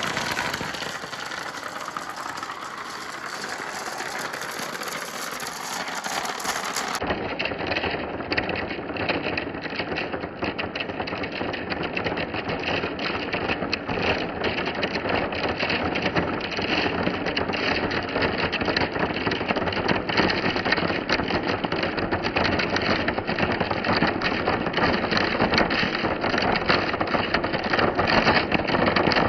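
Marbles rolling along a marble-run track: a continuous rattling rumble dense with small clicks, somewhat louder after an abrupt change about seven seconds in.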